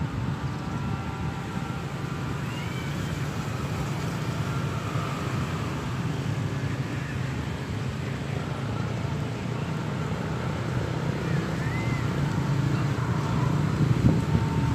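Steady low outdoor rumble, with two brief faint high chirps, one about two seconds in and one near the end.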